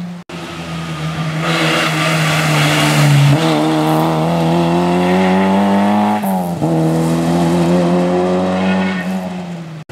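Small hatchback rally car's engine pulling hard through a bend, its pitch climbing steadily. It drops sharply at a gear change about six seconds in, then climbs again as the car drives away.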